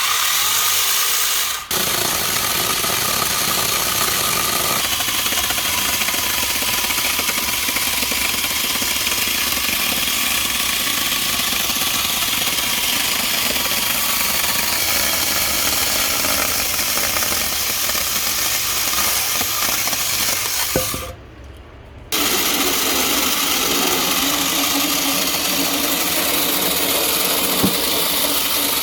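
Cordless brushless electric chainsaw running and cutting through wood. It stops for about a second roughly two-thirds of the way through, then starts cutting again.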